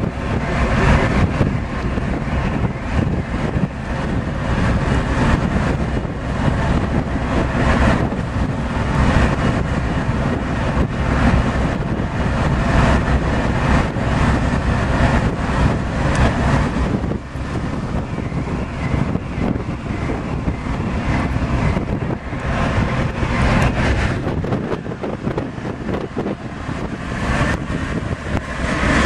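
Wind buffeting the microphone over the steady low rumble of a ship's engines on an open ferry deck.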